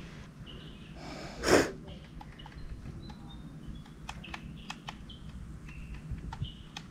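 One loud, hard sniff about a second and a half in, from a child with a runny nose. After it come scattered light clicks and a few short, faint high chirps.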